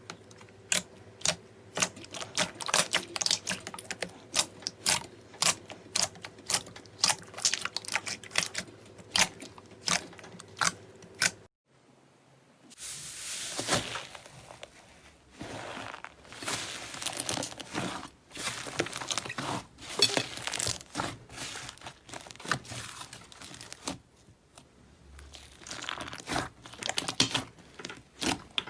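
Slime being pressed and stretched by hand, giving sharp popping clicks about twice a second from trapped air bubbles. After a cut about eleven seconds in, the sound turns to denser wet crackling and squishing.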